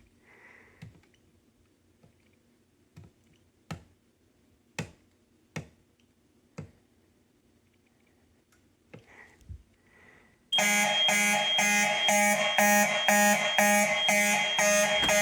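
A few scattered clicks in a quiet room, then about ten seconds in a fire alarm horn starts sounding loudly in even pulses, about two a second, as the system goes into alarm from the activated smoke detector.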